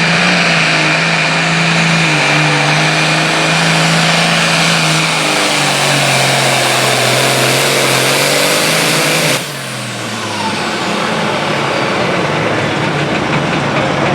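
Super Farm pulling tractor's diesel engine running flat out under load, its pitch slowly sagging as it pulls. About nine seconds in the throttle is cut and the engine sound drops away suddenly, leaving a falling whine as it winds down.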